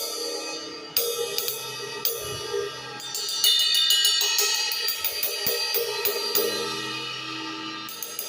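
Vintage Sabian ride cymbal being played with a stick: three single strikes left to ring, then from about three seconds in a quick, even ride pattern whose wash builds up and eases off again.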